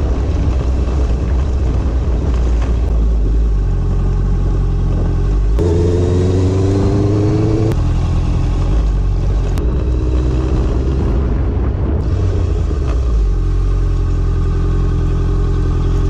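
Honda motorcycle engine running steadily under way, with wind rushing over the microphone; the engine note rises twice as the bike picks up speed, clearest about six seconds in.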